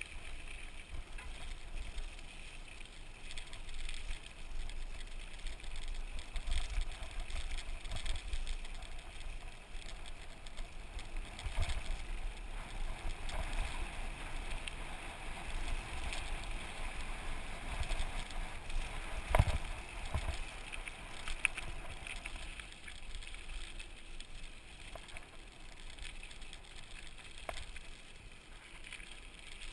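Mountain bike riding over a dirt trail: steady rolling noise with rattles and knocks from bumps. The sharpest knock comes about two-thirds of the way through.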